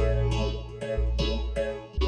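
Background music: a steady pulse of short, decaying notes, about three a second, over a low held bass note that changes about once a second.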